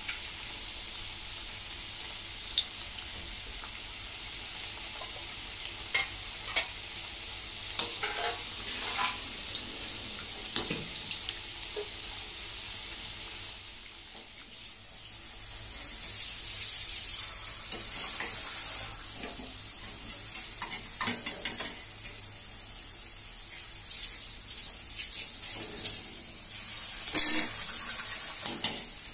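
Peas pakoda fritters deep-frying in hot oil in a steel kadai, sizzling steadily, with scattered short clinks of a wire spider strainer against the pan. About halfway through the sizzle grows louder and higher-pitched.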